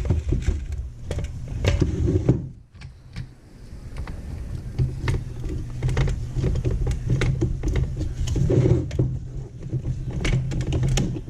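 Irregular clicks, knocks and rattles of the plastic dust shroud and its band clamp being handled and adjusted on the angle grinder, over a steady low hum.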